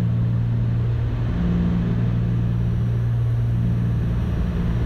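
Cabin drone of a Cessna 310's twin piston engines and propellers at approach power on final. It is a steady low hum with a slow, pulsing rise and fall.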